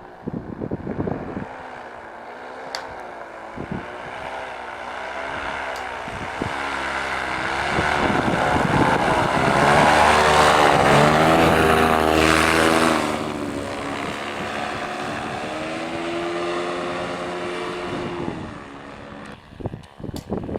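Paramotor engine and propeller flying past: the drone grows louder to a peak about halfway through, drops back suddenly, then holds before fading near the end, its pitch wavering up and down.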